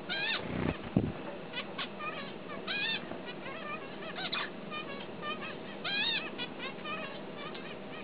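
Male zebra finch singing: quick runs of short nasal notes, with the same curved phrase coming back three times. A low thump about a second in is the loudest sound.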